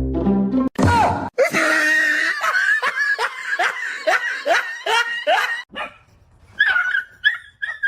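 A dog yelping over and over in a quick run of high cries, each dropping sharply in pitch, about three a second. The cries break off and come back briefly near the end; a soothing "it's alright" just afterwards marks them as distress cries.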